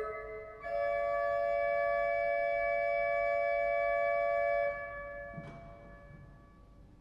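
Vierdag pipe organ sounding a short chord, then one long held chord that is released about four and a half seconds in, leaving the church's reverberation to die away. A faint wooden knock follows as a stop knob is drawn.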